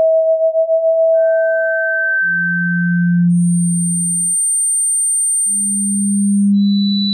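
Pure sine tones from a tinnitus-relief tone sequence: steady single pitches, one low and one high sounding together, each lasting two to three seconds before giving way to the next. A mid tone fades out about two seconds in, with a rapid wavering in the first second; later a very high tone sounds alongside a low hum, and a high tone starts near the end.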